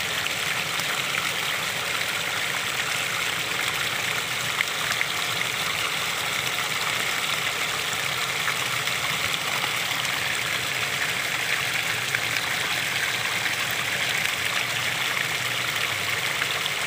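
Small waterfall splashing and trickling steadily, an even rushing hiss with faint drips.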